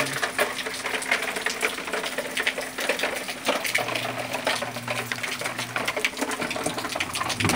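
Rain falling hard and splashing onto hard surfaces close by: a dense, uneven patter of drips and ticks, with a faint steady hum underneath.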